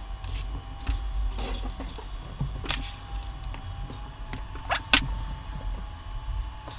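Plastic clicks, scrapes and rattles from handling an 18650 battery pack's plastic cell holders while threading cable ties through them, with the sharpest click about five seconds in.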